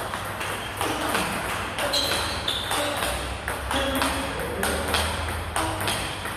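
Table tennis rally: a plastic ball struck back and forth by two bats, one a Butterfly Fan Zhendong ALC blade with Dignics 09C rubber, bouncing on the table between strokes, giving a quick, even run of sharp clicks.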